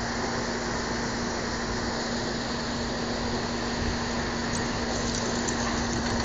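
A steady mechanical hum: one constant low drone under an even rushing noise, unchanging throughout.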